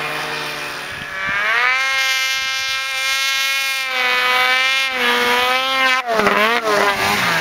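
Polaris RMK snowmobile's two-stroke engine revving: the pitch climbs steeply about a second in and holds at high revs, dips briefly near five seconds, then rises and falls quickly near the end as the throttle is worked.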